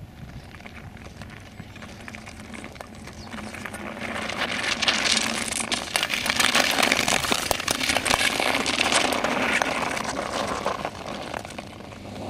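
Speed skates scraping and cutting over rough natural lake ice as a pack of marathon skaters passes close by: a rushing, crackling hiss that swells about four seconds in and fades near the end.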